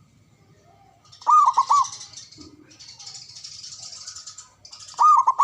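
Zebra dove (perkutut) cooing: a short phrase of three or four quick arched notes about a second in, and another starting near the end. A faint high hiss lies between the phrases.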